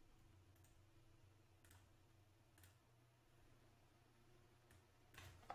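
Near silence: faint room tone with a few soft computer mouse clicks, about a second apart early on and a couple more near the end.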